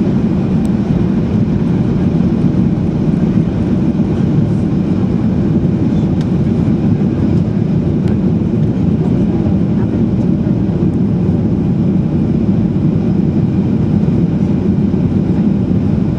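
Boeing 737-800 in flight, heard from inside the passenger cabin: a steady, unchanging rumble of engines and airflow.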